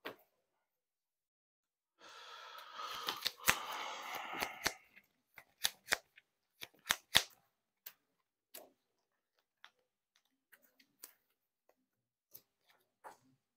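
Sleeved trading cards being shuffled: a rustle of about three seconds with clicks through it, then scattered sharp clicks and taps as cards are handled and set down on a playmat.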